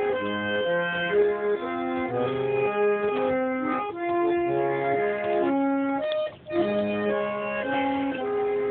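Upright acoustic reed organ playing a steady string of sustained chords and notes that change every half second or so, with a brief break about six seconds in.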